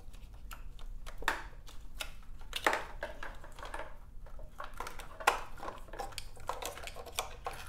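Hands working plastic wiring connectors and harness into a tight space: scattered light clicks and rustling, with a few sharper clicks.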